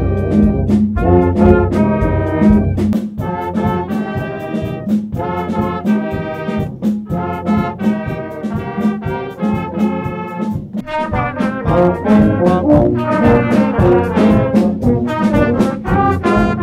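Brass ensemble playing a lively tune, trumpets and trombones over a steady, quick percussive beat.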